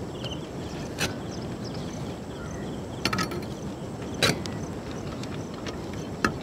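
Steel ladle clinking against the cooking pots as cooked rice is scooped out and layered into a clay pot: a few short, sharp knocks, about a second in, a quick cluster near three seconds, then two more, over a steady background hiss.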